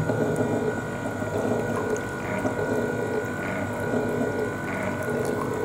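Herbal decoction (kashaya) poured steadily into a ceramic mortar of enema mixture, over the steady hum of the Basti Nirmana Yantra's electric mixer as its pestle turns, with a faint sound recurring about once a second.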